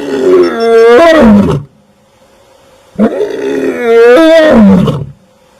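A lion roaring twice: two long, loud roars of about two seconds each, the first already under way at the start, the second beginning about halfway through, each ending in a falling pitch.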